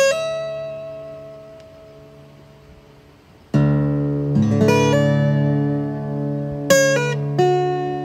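Background music: a slow acoustic guitar piece. Single plucked notes are left to ring and fade, with a fuller chord about three and a half seconds in.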